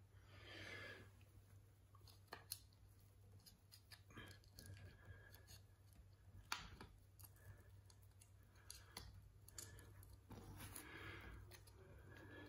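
Near silence with faint handling noise: a few small clicks and light scrapes of hands working a nail into a carpet tack strip.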